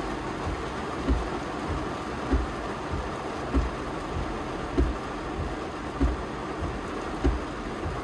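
Windshield wipers running continuously in heavy rain, heard from inside the car: a low thump about every second and a quarter as each wiper stroke turns, over the steady hiss of rain on the windshield.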